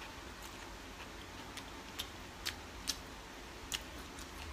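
Faint, scattered clicks and taps of someone eating from a dish, about five of them, over a low room hiss.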